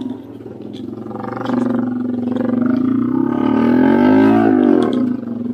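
Honda EX5 motorcycle's single-cylinder four-stroke engine running on a muddy trail, revving up from about a second and a half in and rising and falling in pitch near the four-second mark before easing off.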